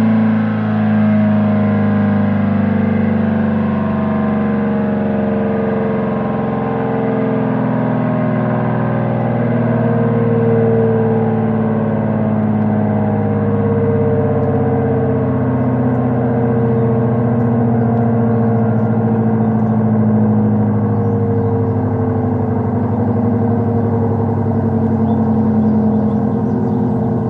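ACA P-10 electromechanical siren sounding loud and continuous, several tones wavering together as its pitch slowly sinks.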